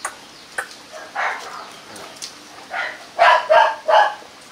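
Rottweiler puppies barking in short yaps: a couple of scattered yaps, then three louder barks in quick succession near the end.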